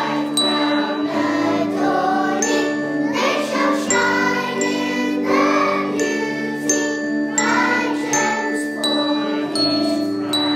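A handbell ensemble playing a tune, each bell struck with a sharp onset and left ringing so that the notes overlap into chords.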